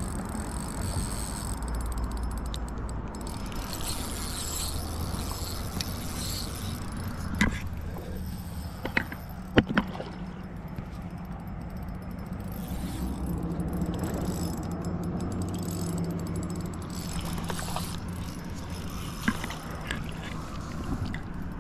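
Fishing reel being cranked steadily as a hooked trout is reeled in, its gears giving a continuous low whir, with a few sharp clicks.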